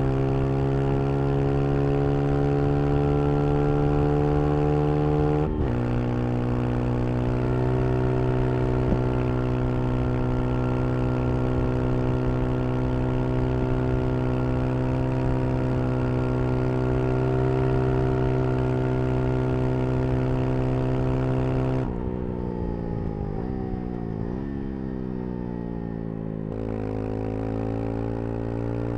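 Brixton Crossfire 125 XS motorcycle's single-cylinder engine under way, running at a steady note. There is a gear change with a short break about five and a half seconds in. Near the end the throttle comes off: the revs fall and waver, then after another gear change they climb again.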